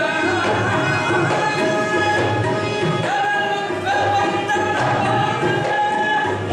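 Qawwali music: sung devotional verse with held melodic notes over a steady hand-drum beat in the tabla style.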